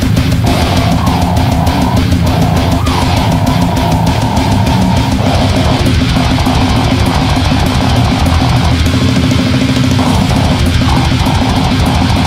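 Metal song playing: heavily distorted electric guitars over a drum kit hammering out rapid, dense beats, loud and unbroken.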